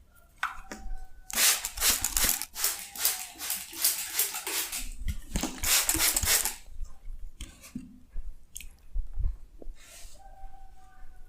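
Hands massaging skin and hair: a dense run of rapid, crackly rubbing strokes for about five seconds, then a few scattered strokes.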